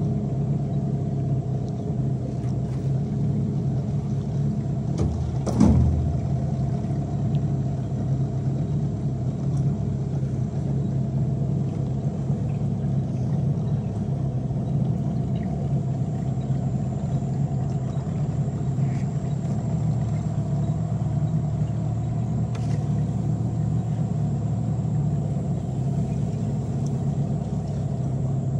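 A small boat's motor running steadily at an even pitch, with a single thump about five and a half seconds in.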